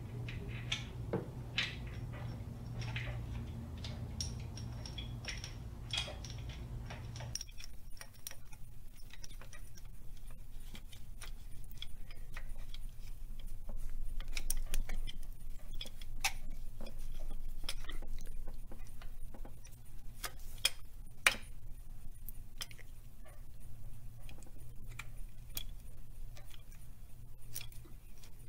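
Irregular metallic clinks and taps of hand tools and timing-chain parts being handled on the engine, with a sharper click about 21 seconds in. A low hum under the first seven seconds stops abruptly.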